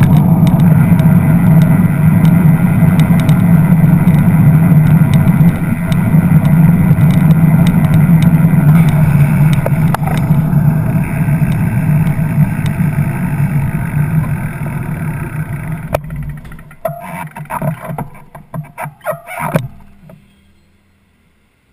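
Steady wind and road rumble on a bicycle-mounted camera while riding in traffic. It breaks up about sixteen seconds in and fades almost to silence by about twenty seconds as the bike comes to a stop.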